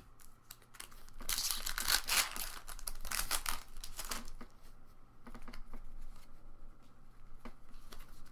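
Foil wrapper of a Pokémon booster pack crinkling as it is torn open, about three seconds of dense crackle starting a second in, followed by lighter scattered clicks and rustles.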